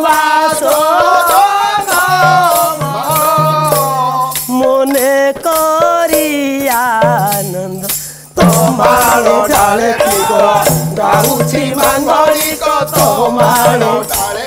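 Woman singing a wavering melodic line of an Odia pala song over rattling percussion keeping a steady beat. The music drops away briefly about eight seconds in, then comes back with fuller accompaniment.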